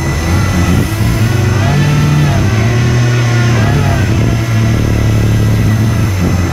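Electric ducted server fans of an RC hovercraft running loud, their pitch rising and falling as the throttle changes.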